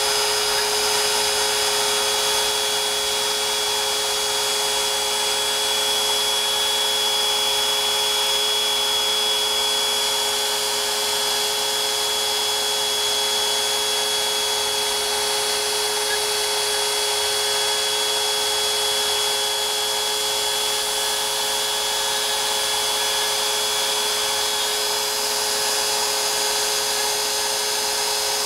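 CNC router spindle running at a steady high whine while its small carving bit cuts a decorative relief into wood, with no change in pitch or level.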